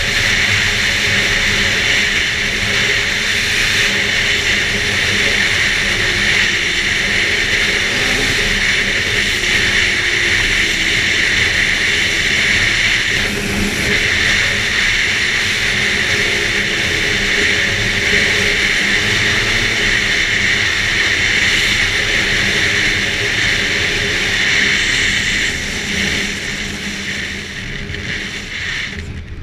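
2011 Arctic Cat F8 Sno Pro snowmobile's two-stroke twin engine running steadily at speed along with its track noise, the sound easing off a little near the end.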